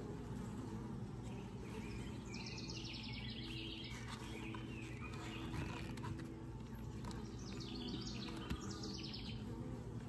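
Honeybees humming steadily from the open Layens hive, while a songbird sings two rapid trilled phrases, one about two seconds in and another near the end.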